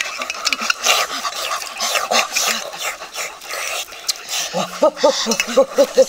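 A person eating noisily: busy chewing and smacking, then a quick run of short grunting hums in the last second and a half.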